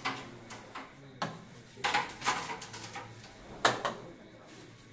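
A handful of sharp wooden clacks of carrom striker and coins on wooden carrom boards, with a quick cluster about two seconds in and the loudest clack near the end.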